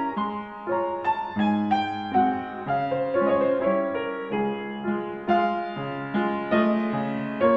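Solo piano music: a gentle melody of notes played one after another over held lower notes, about two notes a second.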